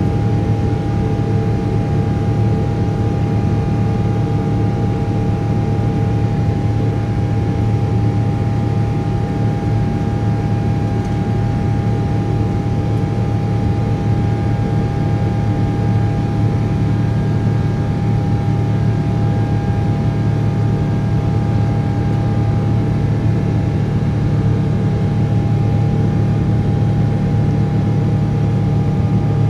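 A Boeing 777-300ER's GE90-115B turbofan at climb thrust, heard inside the cabin: a loud, steady drone with a constant whine and rushing air, no change in power.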